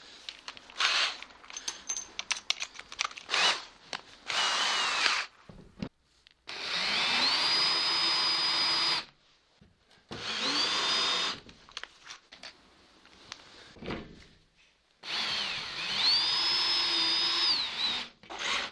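Cordless drill running a countersink bit into screw holes in a wood panel, in several short runs. Each run has a whine that rises as the motor spins up, and clicks and knocks of handling come in between. The screw heads were not sitting flush, so the holes are being countersunk.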